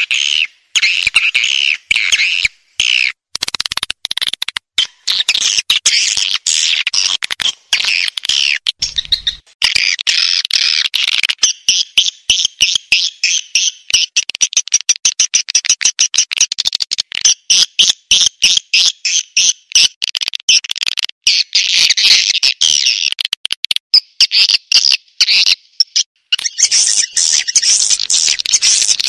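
Swiftlet call recording of the kind used to lure swiftlets into nesting houses: dense, rapid, high twittering chirps, repeatedly cut by short abrupt gaps.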